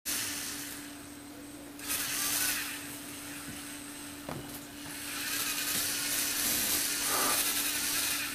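Lego Technic electric motor and plastic gears driving a scissor lift, whirring in two stretches: briefly about two seconds in, then again from about five seconds to the end, over a steady low hum.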